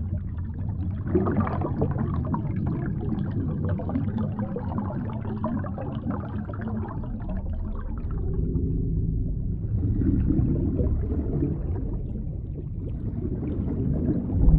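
Underwater ambience: a muffled, continuous low rumble with a fine crackling fizz above it, which thins out briefly about halfway through.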